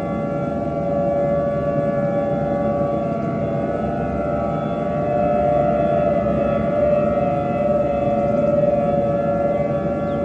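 Civil defense siren sounding a steady tone over a dense low rumble, warning of an incoming nuclear missile attack.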